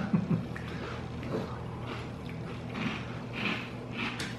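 Dry, very crispy Cap'n Crunch corn-and-oat cereal being chewed without milk: soft, irregular crunches about every half second, over a faint steady hum.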